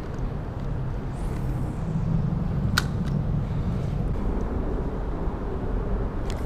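Road traffic rumbling on the concrete bridge overhead, swelling as a vehicle passes a couple of seconds in, with one sharp click near the middle.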